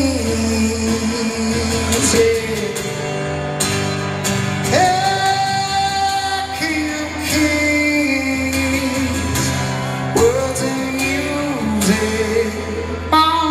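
A man singing live over his own acoustic guitar, holding long notes in a slow melody.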